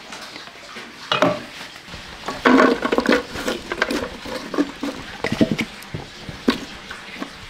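Irregular knocks and clatter of kitchen prep: cut lemongrass stalks dropped by hand into a metal pot, busiest about two and a half to three seconds in.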